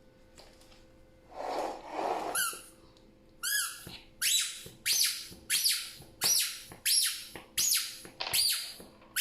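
Squeakee balloon-dog toy giving its balloon-rubbing sound effects: a short hiss about a second in, then a run of about ten loud, high squeaks, each bending in pitch, coming evenly about every half second.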